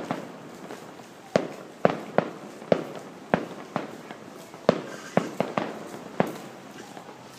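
Fireworks display: about a dozen sharp bangs of bursting shells at irregular intervals, roughly two a second, each with a short echoing tail.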